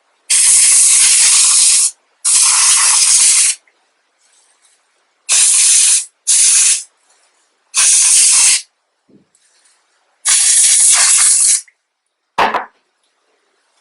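Can of compressed-air duster sprayed in six short blasts, each lasting one to two seconds, blowing dust out of a PlayStation 4. A brief knock follows near the end.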